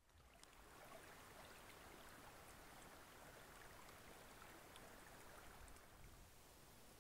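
Faint, steady rush of water running over rocks in a small brook, fading in over the first second.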